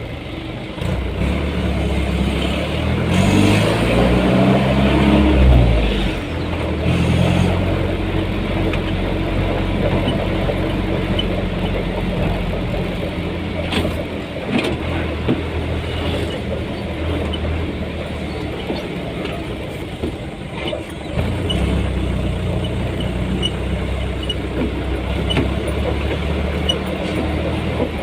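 Vehicle engine running on the road, speeding up with a rising pitch a few seconds in. It drops back sharply around six seconds, as at a gear change, then runs steadily, easing off and picking up again near the end.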